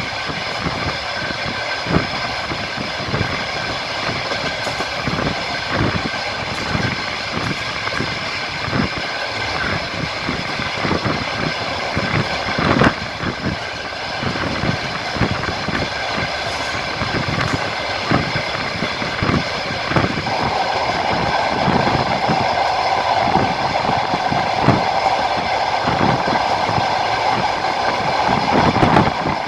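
Wheels of a moving passenger train clicking over rail joints, heard from a carriage window, over a steady running rumble. A steady hum joins about two-thirds of the way through.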